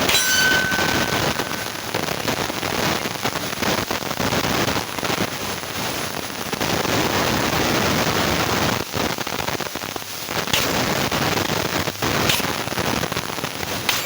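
A few sharp pistol shots cracking over a steady rushing noise, one near the start and two more near the end.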